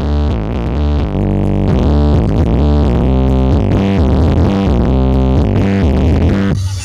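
Loud synthesizer music with sustained chords over a heavy bass, changing abruptly near the end.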